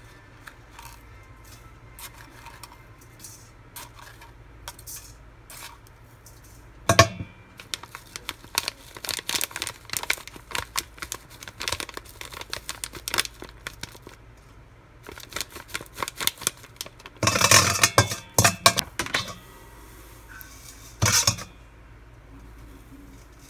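A metal spoon clinking and scraping against a stainless steel mixing bowl as powders are spooned in, with papery packet rustling; a longer rustle or tear comes about two-thirds of the way through, and a short one near the end.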